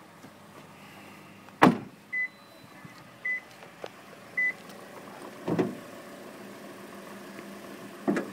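A car door shutting with a heavy thud about a second and a half in. Three short, high electronic beeps from the car's warning chime follow, about a second apart, then a softer knock and, near the end, a click as the hood's safety latch is worked.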